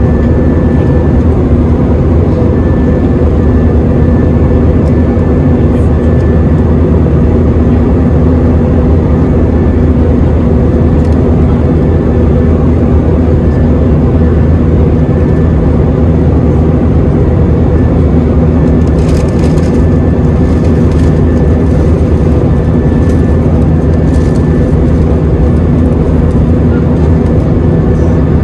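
Steady roar of jet engines and airflow heard inside the cabin of a Jetstar airliner in flight after takeoff, with a faint steady whine on top and a few light clicks about two-thirds through.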